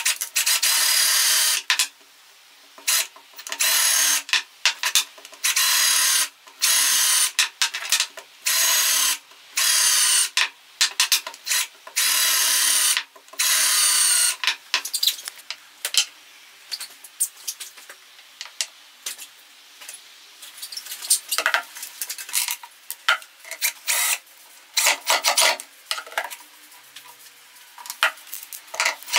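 Cordless drill boring holes into small wooden blocks, running in repeated bursts of a second or two, the motor's whine under the rasp of the bit cutting wood. In the second half the bursts are shorter and quieter.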